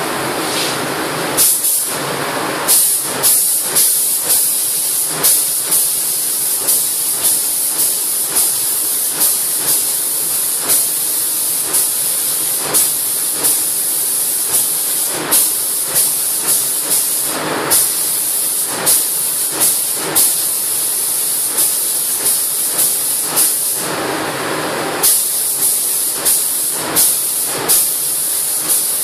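Gravity-feed paint spray gun hissing in short repeated blasts, roughly two a second, as the trigger is pulled for quick passes over a steady background hiss of air. The blasts stop briefly near the end, then resume.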